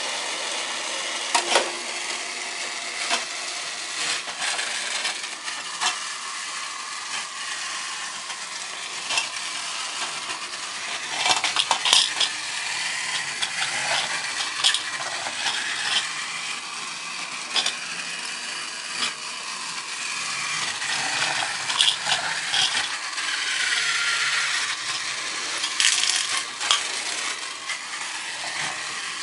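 A battery-powered toy Thomas engine running on plastic track: the steady whir of its small motor, with frequent sharp plastic clicks and clinks.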